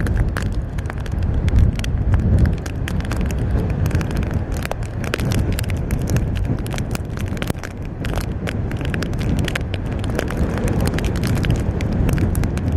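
Hurricane-force wind buffeting the microphone in a loud, continuous low rumble, with rain striking the camera's waterproof case in many sharp ticks.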